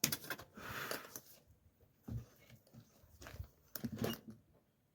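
A few light knocks and short scrapes as a tight-fitting hinge is tapped down into its chiselled recess in the door edge with something softer than a hammer.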